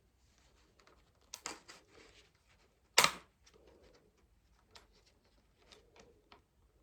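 Plastic RAM packaging being handled and pried at: scattered small clicks and crinkles, with one sharp plastic click about three seconds in.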